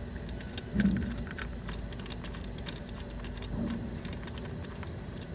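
Irregular light metallic clicks and clinks of hand tools against a bolt and washers, with a duller knock about a second in, as a bolt-and-washer seal installer is worked to press a camshaft oil seal into place.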